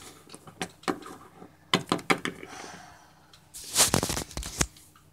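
Small plastic toy figures and a toy table tapping and clicking on a wooden desk as they are moved by hand, a few sharp taps in the first couple of seconds, then a louder rustling clatter about four seconds in.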